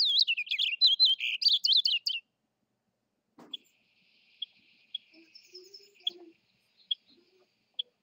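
Male purple finch singing a rapid, tumbling warble of about two seconds, followed after a pause by a few faint, short notes spaced about a second apart.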